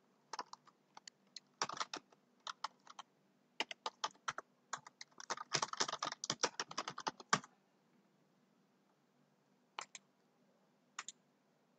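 Typing on a computer keyboard: quick runs of keystrokes in short clusters through the first seven seconds or so, then a pause broken by a few single key clicks.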